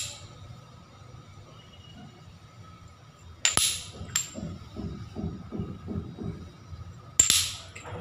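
Small glazed ceramic tiles clinking as they are set down on a table: a sharp clink about three and a half seconds in, a lighter one just after, and another near the end, each with a short high ring. Between them comes a run of short low sounds falling in pitch, about three a second.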